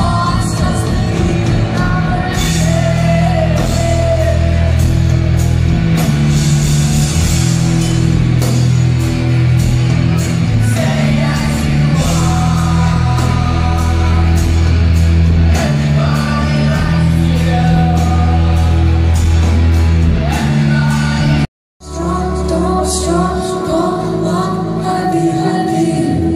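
Live rock band playing a song with sung vocals: electric guitars, bass and drums, amplified in a concert hall. About 21 seconds in, the sound cuts out completely for a moment, then returns sparser.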